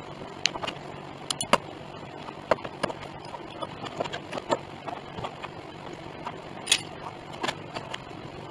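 Steel C-clamps being handled and set on a wooden piano rim during a glue-up: irregular metal clinks, clicks and knocks, the loudest about a second and a half in and again near seven seconds.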